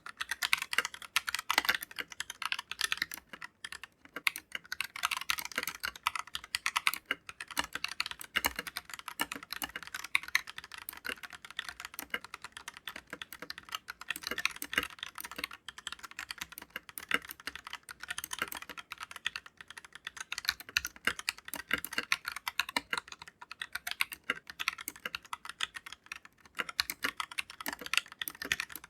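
Typing on an Akko 3087 V2 mechanical keyboard with stock, unlubricated Akko Pink linear switches and PBT double-shot keycaps: a fast, continuous run of key clacks with no pause.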